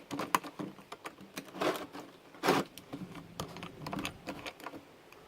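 Hands working a small plastic container: irregular clicks, taps and short scrapes, a few louder knocks among them.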